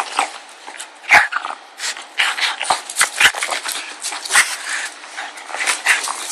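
A pug play-attacking a sneaker, making a rapid, irregular run of short growling sounds, with a few sharp knocks along the way.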